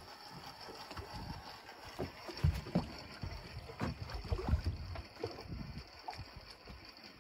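Small-boat sea ambience: water lapping against the hull, with several low thuds and gusts on the microphone around the middle.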